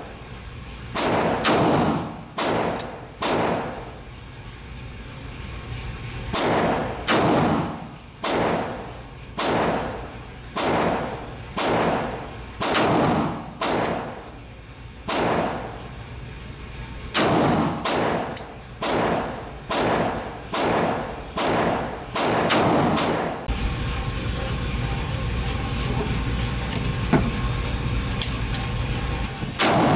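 Ruger GP100 Match Champion revolver in 10mm fired repeatedly, about one shot a second, each shot echoing briefly. After about 23 seconds the shooting stops and a steady low hum remains, with a single click near the end.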